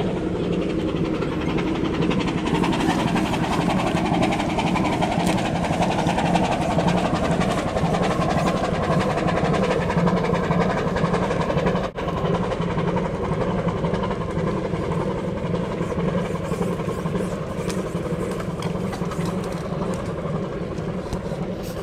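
Steady rumbling noise with a low hum, briefly cut off about twelve seconds in.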